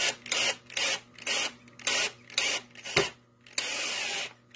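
Power drill driving a screw through the steel hoop of a fruit press into a wooden slat, run in short bursts about twice a second, then in one longer steady run near the end.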